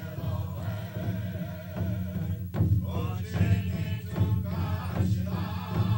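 Vocal music: singing or chanting over a steady low hum.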